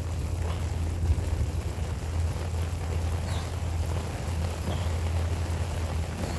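Rain falling steadily over a continuous low rumble, with a single light knock about a second in.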